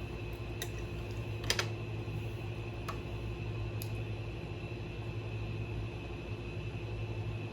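Steady electrical hum with a few short, sharp clicks; the loudest is a brief crackle about a second and a half in.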